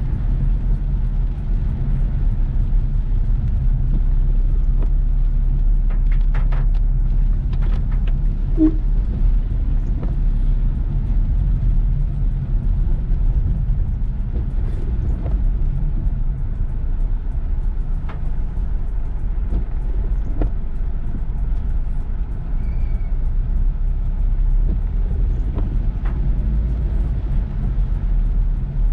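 Car driving in heavy rain: a steady low rumble of engine and road, with scattered light taps and clicks over it.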